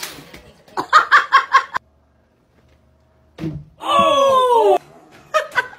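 A person laughing in quick bursts, twice, with a long vocal sound falling in pitch between.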